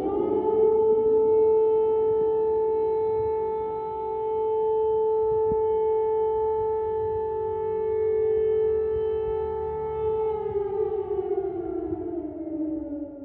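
Civil defense siren sounding an air-raid warning ahead of a nuclear missile strike announcement. It rises to pitch at the start, holds one steady tone for about ten seconds, then winds down in pitch near the end.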